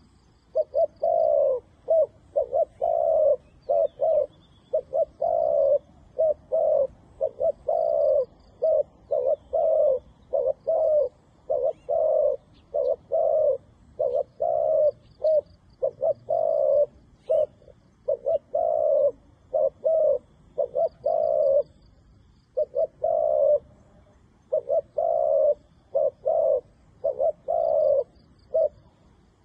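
Spotted doves cooing: a long run of short, low coos in quick succession, broken by a couple of short pauses late on.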